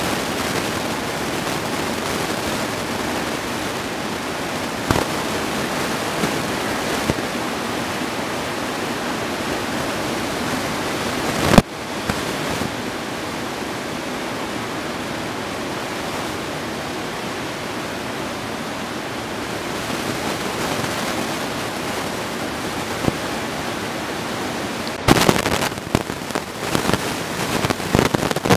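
Steady roar of breaking ocean surf, a dense even rush of noise. It is broken by a few sharp pops: one loud pop about a third of the way in and a cluster of them near the end.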